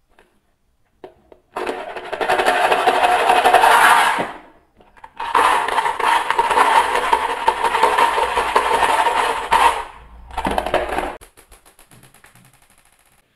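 Marbles clattering and rattling as they are tipped out of a small plastic toy wheelie bin onto a wooden slope: two long bursts of dense clatter, then a short one, fading to faint ticking of marbles settling.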